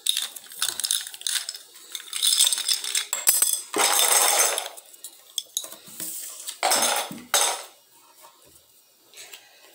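Small hard plastic pieces handled on a granite countertop: a run of clicks and clatters, with a few brief stretches of scraping rattle about four and seven seconds in. Fainter ticks come near the end.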